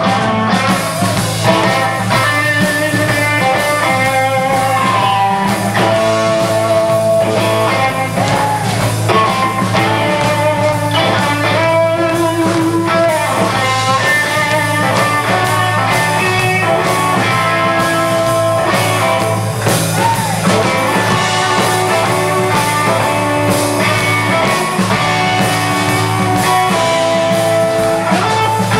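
Live rockabilly band playing an instrumental passage: a lead electric guitar plays bending melodic lines over electric bass and a steady drum beat.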